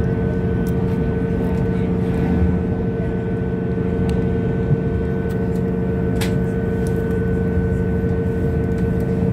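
Passenger train running at steady speed, heard from inside the carriage: an even engine and running hum with a low rumble, and a few faint clicks.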